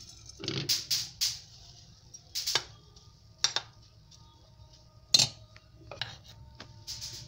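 Steel spoon clinking and scraping against a steel pot while stirring prawns soaking in hot water: a handful of separate sharp clinks, the loudest about five seconds in.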